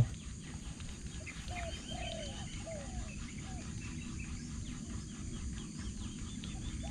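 A bird calling outdoors in a run of short, falling notes, five or so from about a second and a half in and more starting near the end, over a faint steady chorus of insects.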